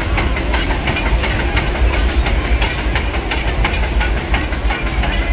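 Disneyland Railroad steam train rolling across a trestle bridge: a quick, steady run of wheel clicks and knocks over a low rumble.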